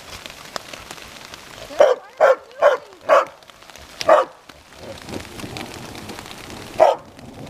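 A dog barking: four quick barks, then one more, then a last one near the end, over a steady hiss of pea-sized hail and rain falling.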